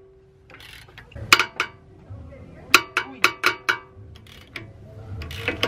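Socket ratchet loosening the 14 mm nuts on a brake caliper: short runs of sharp metallic clicks with a slight ring, one run about a second and a half in and a longer one around three seconds.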